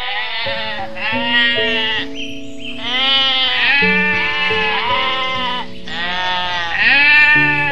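Sheep bleating: a run of long, quavering bleats, one after another, about one a second, the loudest near the end. Background music with held notes plays under them.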